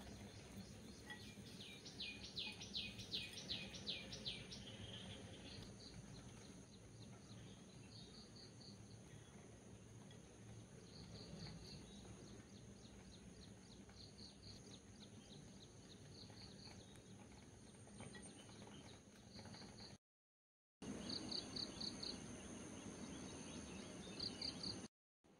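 Faint outdoor ambience with repeated high chirping: a quick run of chirps about two seconds in, then short clusters of chirps every second or two. The sound drops out for about a second near the 20-second mark.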